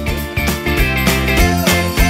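Outro music with a steady beat.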